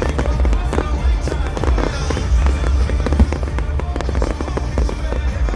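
Fireworks bursting and crackling in quick, irregular succession over loud show music with a heavy bass.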